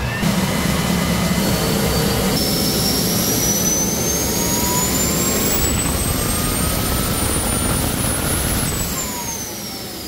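Homemade turbocharger-based turbojet engine running with a steady roar and a thin turbine whine that climbs steadily in pitch for several seconds. Near the end the whine turns and falls and the engine gets quieter as it winds down.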